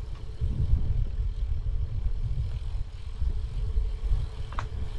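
Wind buffeting the microphone outdoors: a low, uneven rumble, with a faint steady hum under it and a brief high chirp near the end.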